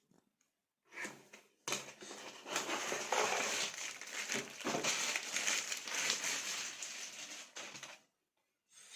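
Crinkling and rustling of handled plastic, likely packaging, for about six seconds. A short rustle comes about a second in, and the sound stops shortly before the end.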